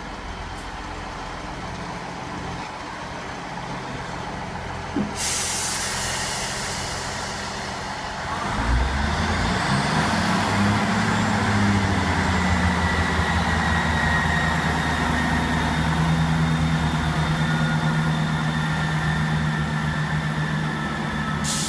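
Class 158 Express Sprinter diesel multiple unit pulling away from a station: a hiss of air about five seconds in, then its diesel engines open up a few seconds later and run steadily under power with a whine that rises in pitch. A second hiss comes near the end.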